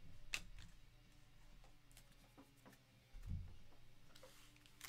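Near silence with a few faint clicks and light ticks as trading cards are handled and laid down on a table, and a soft thump about three seconds in.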